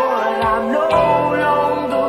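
Rock music from a demo cassette recording: sustained chords with a wavering melody line over them, and low hits about half a second and a second in.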